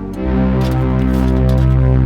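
Background music: sustained synthesizer-like chords with a deep bass that comes in a quarter second in.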